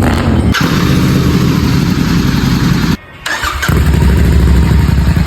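Royal Enfield Continental GT 650's 648 cc parallel-twin engine running loudly through a Red Rooster Performance aftermarket exhaust. It comes in edited clips, with abrupt cuts about half a second in and again about three seconds in, where it briefly drops quieter.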